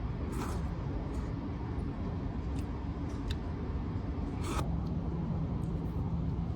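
Steady low background rumble and hum, with a few short clicks or scrapes scattered through it; the hum shifts in pitch a little past halfway.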